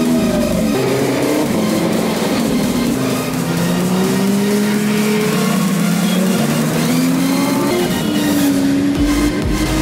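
Lamborghini supercar engines revving as the cars pull away one after another, the engine note climbing steadily in pitch, dropping back and climbing again. A deep low rumble comes in near the end.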